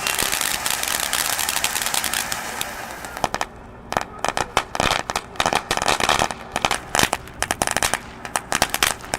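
Consumer firework going off, first spraying with a dense, steady hiss and crackle, then, about three seconds in, breaking into a rapid, irregular string of sharp crackling pops.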